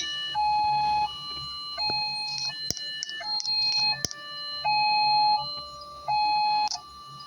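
Small electronic train siren sounding a sequence of steady electronic tones that jump between a few pitches, each held about half a second to a second, some notes louder than others.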